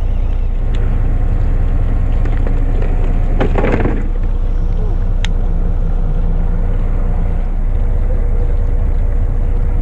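Fishing boat's engine running steadily, a low drone. A brief louder scuffing noise about three and a half seconds in and a sharp click about five seconds in.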